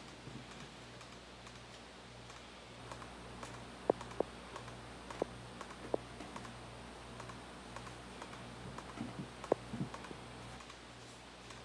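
Irregular key presses and clicks on a laptop keyboard, a few sharp taps spread out with a short flurry near the end, over a faint low hum.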